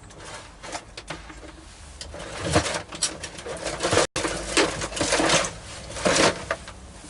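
Irregular rustling and knocking of small parts and objects being handled and sorted, with bursts of clatter in the middle of the stretch.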